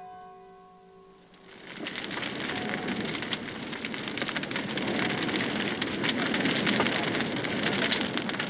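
A bonfire of wood and pallets catching and burning, with dense crackling and popping that swells up about a second and a half in and then holds steady. The last held notes of background music fade out at the start.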